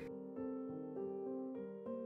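Quiet piano background music, with notes and chords changing about every half second.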